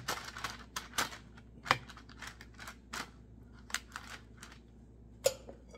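A spoon clicking and tapping irregularly against a parchment-lined baking sheet as meringue is dolloped and shaped on it, with two sharper clicks, about two seconds in and near the end.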